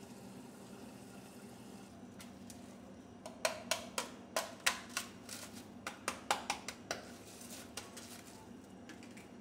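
A kitchen knife pressed through a sheet of setting dalgona, Korean honeycomb sugar candy, the brittle candy snapping in a quick run of about a dozen sharp cracks between about three and seven seconds in. A steady low hum runs underneath.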